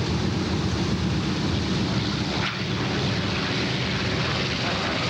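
Piston-engined propeller warbird passing overhead, its engine noise loud and steady.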